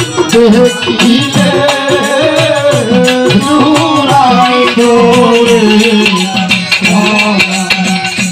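A man singing a Bengali folk song through a PA microphone, his voice sliding and ornamenting the melody, over hand-drum and rattling percussion that keeps up a busy steady rhythm.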